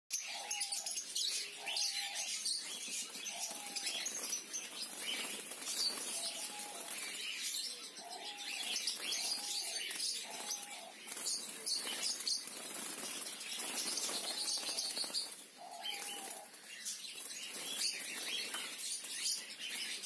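Caged lovebirds chirping and chattering continuously, with wings fluttering against the cage. A short, lower call repeats about nine times among the chatter.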